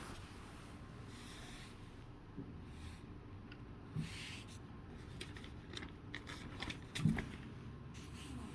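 Handling of plastic Lego pieces: scattered small clicks and taps, with one louder knock about seven seconds in.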